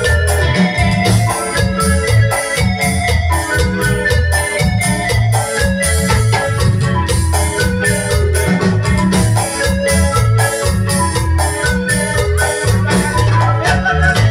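Loud live Latin dance music: an electronic keyboard plays an organ-like melody over a pulsing bass line and steady, rhythmic percussion.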